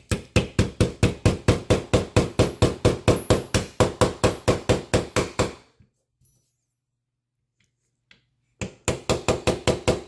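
Small hammer tapping rapidly on a punch, driving roll pins back into a CZ P10F pistol frame. There are two runs of quick, even, ringing metal taps, about five or six a second: the first lasts about five seconds, and the second starts after a pause of about three seconds.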